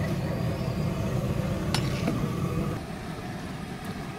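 A large metal pot of chicken curry at the boil, with a metal ladle clinking against it twice about two seconds in, over a steady low rumble that drops off a little before three seconds in.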